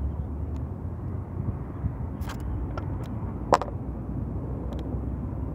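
Steady low outdoor rumble with a few light clicks and one sharper snap about three and a half seconds in, from hands twisting open a ripe fruit.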